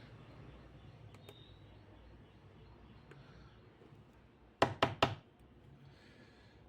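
Three quick, sharp knocks, each a fifth of a second or so apart, a little past halfway through, over a faint steady hum.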